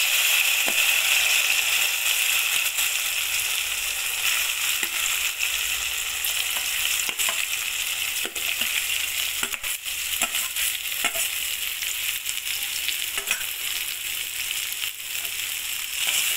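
Boiled, deseeded Indian gooseberries sizzling in hot sesame oil as they are tipped into a kadai and stirred with a spatula: a steady frying hiss with scattered clicks and scrapes, loudest in the first couple of seconds.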